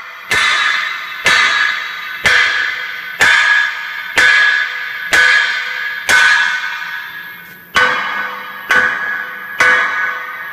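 A hammer striking the freshly cut section of a Ford Super Duty's steel frame rail, about eleven blows roughly a second apart, each leaving the metal ringing.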